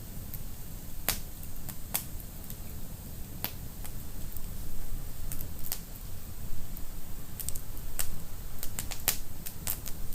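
Wood fire burning in a fireplace, crackling with irregular sharp pops over a steady low rumble. The pops come thicker near the end.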